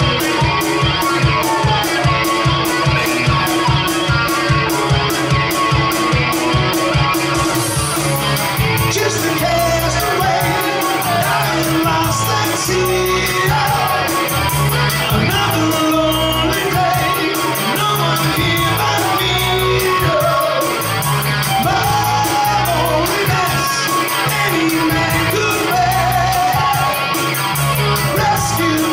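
Live rock song on electric guitar and voice. The guitar is strummed in a steady rhythm, then the sound fills out and a man starts singing over it about eight seconds in.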